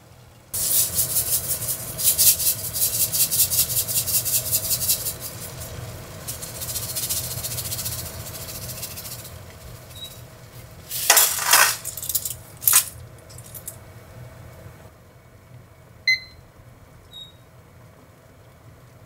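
Pasta-cooking sounds at the stove: a hissing, crackling stretch, then a few loud clatters about eleven to thirteen seconds in. Near the end, two short beeps from a digital kitchen timer as its buttons are pressed.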